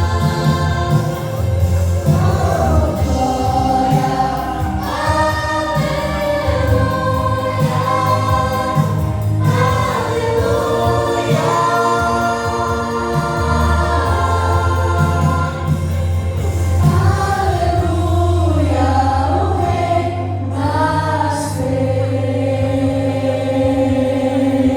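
A youth choir singing a Christian gospel song together, with sustained low bass notes underneath.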